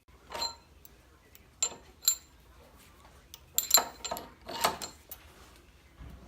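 Several sharp metallic clinks and knocks from steel tools being handled and set down, with a faint low hum underneath.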